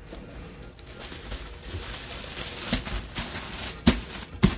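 Plastic liner and cardboard rustling as hands dig through a shipping box, with a few sharp knocks in the second half, the loudest two near the end.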